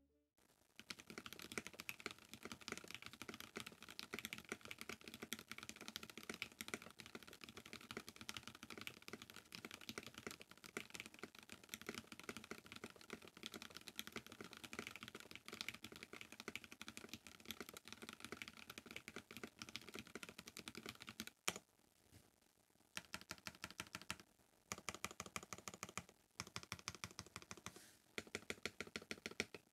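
NovelKeys NK87 mechanical keyboard, with a polycarbonate plate, Gateron KS9 switches lubed with Krytox 205g0 and NicePBT keycaps, being typed on fast and steadily in a typing test. A louder clack comes about 21 seconds in, then a short pause, then shorter runs of typing.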